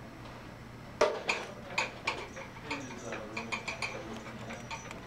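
Rolling aneroid blood pressure stand being wheeled along with footsteps: a loud knock about a second in, then irregular clicking and rattling about two to three times a second over a faint low hum.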